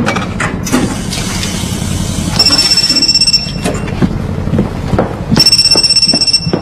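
Telephone ringing with an electronic trill, two rings of about a second each, some two seconds apart, with a few soft thumps in between.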